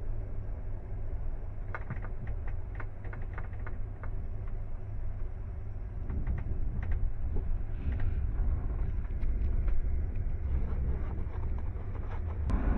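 Rumble of a passenger train carriage rolling slowly, heard from inside, with scattered sharp clicks and knocks from the running gear at about two seconds in and again in the last few seconds.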